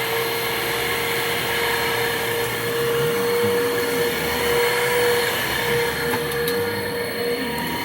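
2009 Hoover Mach Cyclonic upright vacuum cleaner's motor running steadily, just up to speed, with a steady high whine. A lower wavering tone joins in from about three seconds in. The old belt to the brush roll is worn and needs replacing.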